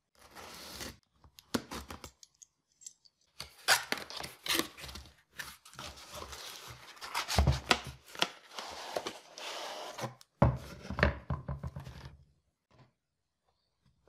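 A knife slitting open a cardboard box, then the cardboard flaps being torn loose and pulled open, in irregular scraping and tearing bursts with sharp knocks.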